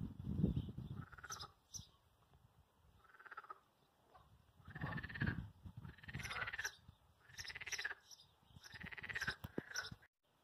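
Dalmatian puppies squealing while they play-wrestle: four high, arching whining cries, one every second or so in the second half, with a low rustle near the start.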